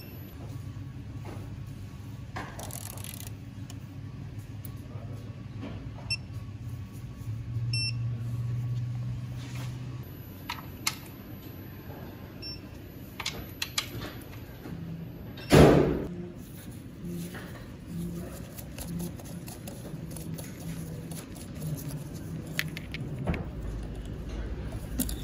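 Hand-tool work on an engine's valve cover bolts with a ratcheting digital torque wrench and socket: scattered metal clicks and knocks, a few short high beeps, and one loud knock about two-thirds of the way through, over a steady low hum.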